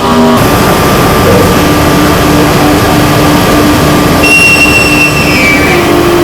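A CNC milling machine cutting metal with an endmill in trochoidal milling: a steady, loud cutting noise with a constant tone from the spindle. A high whine enters about four seconds in and falls in pitch.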